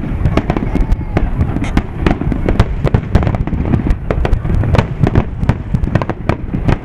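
Aerial fireworks shells bursting in a dense barrage: several sharp bangs a second, overlapping, over a continuous deep rumble.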